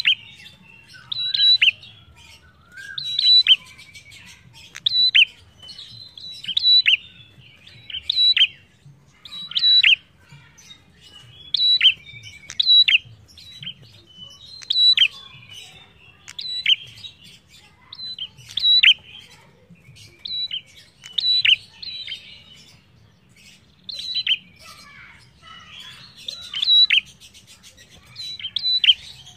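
Prenjak songbird singing steadily: loud sharp chirps repeated about every one to two seconds, each a brief high note with a quick downward sweep, with softer twittering between them.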